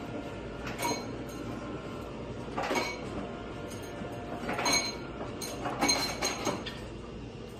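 Metal serving fork clinking against a plate and foil roasting pan while roast turkey is pulled apart, in four short clusters of clinks with a brief ring.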